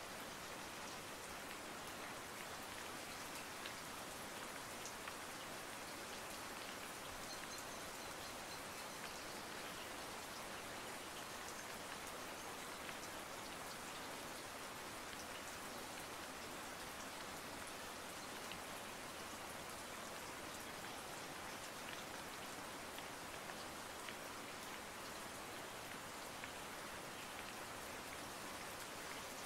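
Steady sound of rain: an even hiss with faint scattered ticks, unchanging throughout.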